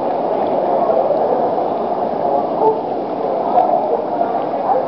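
Water rushing and gurgling steadily around swimmers in a narrow rock gorge.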